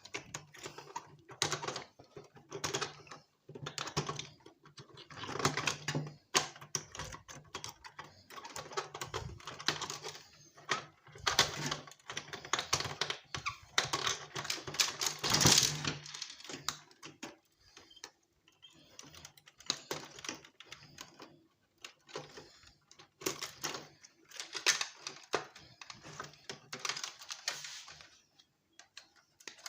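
Irregular clicking and clattering of small plastic and metal electronic parts being handled and pulled apart while scrap electronics are dismantled, with a low steady hum underneath.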